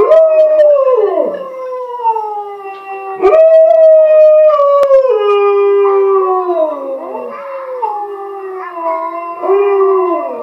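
Alaskan Malamute howling along with a recording of his own howl played from a laptop speaker, the live and recorded howls overlapping. The howls are long and slide slowly down in pitch, with a fresh, higher howl starting about three seconds in and again near the end.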